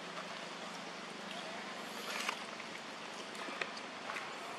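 Steady outdoor background hiss with a few faint, short clicks and rustles.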